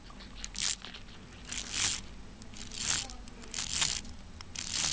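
Plastic bead chain being pulled through the plastic chain mechanism of a mini roller blind, rattling in short pulls about once a second, as the beads are drawn across to the other side of the mechanism.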